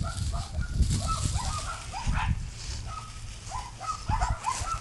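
A puppy giving short, high yips and whines again and again, with rustling in dry leaves and wind rumbling on the microphone.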